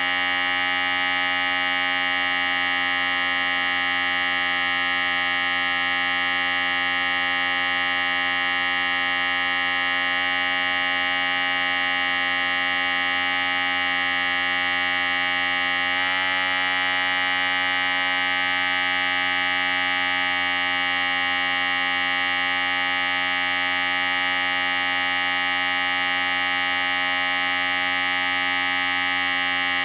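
Electric hair clippers running with a steady buzz. Its tone shifts slightly about halfway through.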